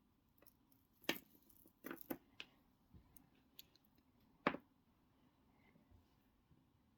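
Small metal jewellery pieces clicking and tapping as a tangled chain caught on a hook is handled: a few sharp clicks about a second in, a cluster around two seconds, and a louder single click near four and a half seconds.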